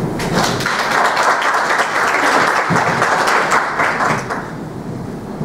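Audience applauding: many hands clapping together, fading out about four seconds in.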